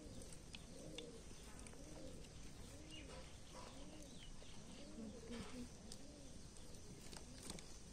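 A dove cooing over and over in a steady series of soft, low coos, each rising and falling in pitch, with a few faint higher bird chirps.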